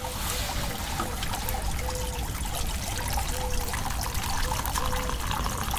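Freshly boiled water poured from a titanium pot into a metal mug, a steady trickle and splash.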